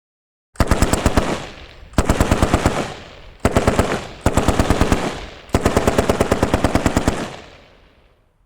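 Automatic gunfire: five bursts of rapid shots, the last one the longest, with a reverberant tail fading away after it.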